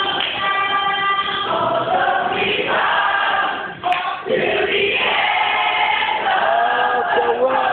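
A small group of pupils singing together into a microphone, several voices holding and changing notes. Near the middle the sound briefly drops away and there is a sharp click before the singing resumes.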